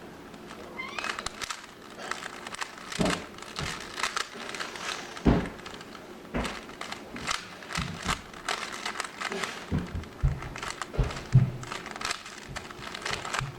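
Speed cube being turned quickly by hand: irregular plastic clicking and clacking of the layers, with a few louder knocks.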